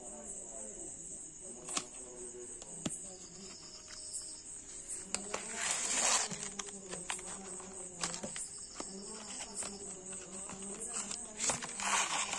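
Cardboard power-bank box being handled and opened: scattered taps and clicks, with two louder rustling scrapes of the box and tray sliding, about six seconds in and near the end. Steady high chirring of crickets runs underneath.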